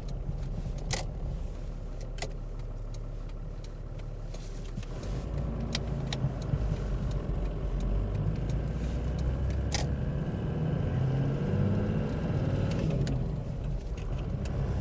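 The Toyota Land Cruiser HJ61's 12H-T four-litre turbo diesel inline-six, heard from inside the cab while driving. It drones steadily, then pulls harder from about five seconds in with a slowly rising pitch, and eases off briefly near the end. A few light clicks sound over it.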